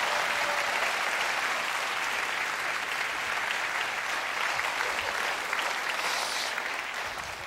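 Studio audience applauding steadily, fading out near the end.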